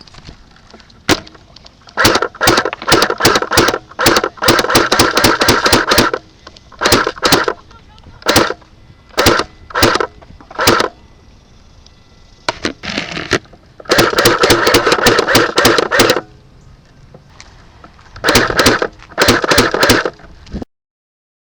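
Airsoft guns firing in rapid strings of sharp cracks, many to a second, some strings lasting about two seconds, with single shots and short bursts in between. The sound cuts off abruptly near the end.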